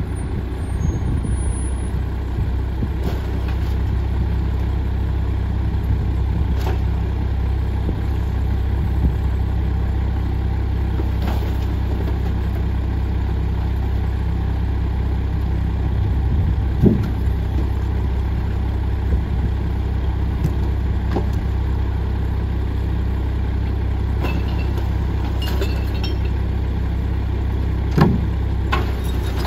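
Mack MR garbage truck's diesel engine idling steadily. A few sharp knocks and thuds come from recyclables being tossed into the McNeilus rear-loader hopper.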